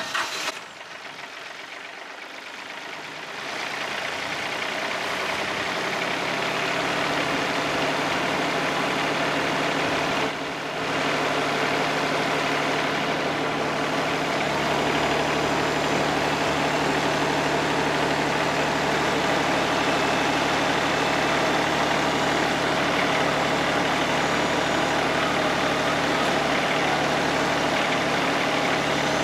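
Wood-Mizer LT50 Wide portable sawmill's engine starting up and running steadily. It grows louder over the first few seconds and dips briefly about ten seconds in.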